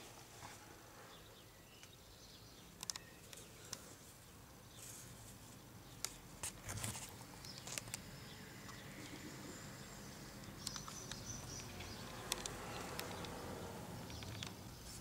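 Faint background noise with scattered light clicks and taps, handling noise from a handheld camera being moved around under a car.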